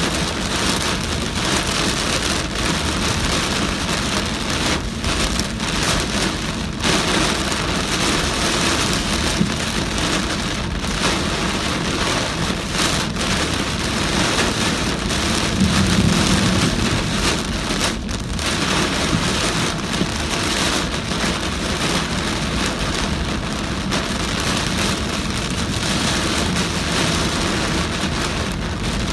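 Heavy rain pouring down on a car driving through it, with steady tyre and road noise underneath. The low rumble swells briefly about halfway through.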